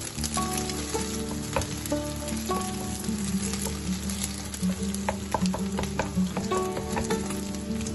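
Beaten eggs frying in hot oil in a coated frying pan, sizzling steadily while a wooden spatula stirs and scrapes them, with many small clicks and taps against the pan. Background music plays underneath.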